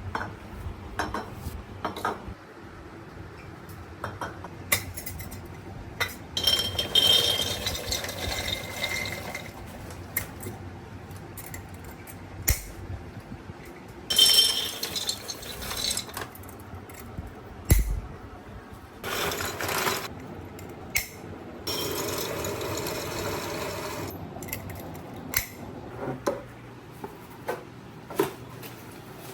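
Dishes, glassware and utensils clinking and knocking as they are handled and set down, with four spells of water running into containers.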